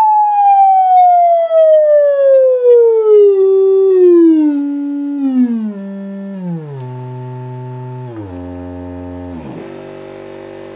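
Test tone from a signal generator played through a bare woofer driven by a Velleman K8060 discrete power amplifier. It starts as a loud, steady high whine, then sweeps down in pitch, smoothly at first and then in steps, to a quieter low hum. Near the end the note briefly dips lower twice.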